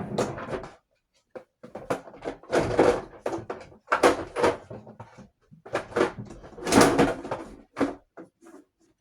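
Rustling and clattering of objects being handled and moved about, in four or five bursts separated by short pauses.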